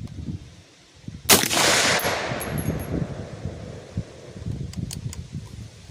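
A single rifle shot from an AR-15 chambered in 350 Legend, a little over a second in, its report echoing and fading away over the next second or two.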